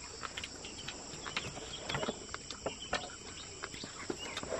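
Steady high-pitched chirring of crickets or similar insects, with scattered light clicks and taps from hands working with bowls and bamboo sticks.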